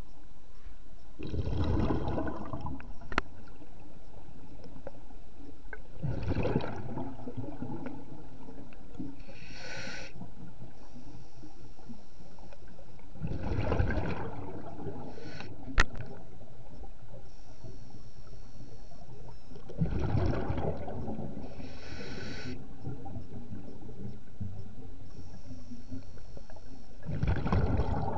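Scuba diver breathing through a regulator underwater: a gush of exhaled bubbles about every six to seven seconds, five times, with a short hiss from the regulator on each inhalation in between. Two sharp clicks, one about three seconds in and one about halfway.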